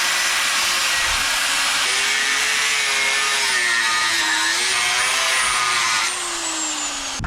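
Angle grinder cutting through steel, cutting off an old stabilizer leg from the trailer frame. It runs at a steady, loud level with a wavering whine as the disc bites, eases off about six seconds in and stops just before the end.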